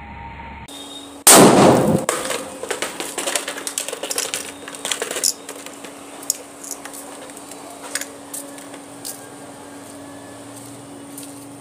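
A firecracker bursting under a motorcycle helmet: one loud bang about a second in, followed by a few seconds of rattling clatter as the helmet is thrown over and debris lands on the concrete, thinning out to scattered ticks.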